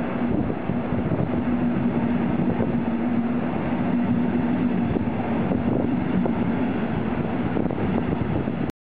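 German railway train running: a steady rumble with a low hum that weakens over the second half, cutting off suddenly near the end.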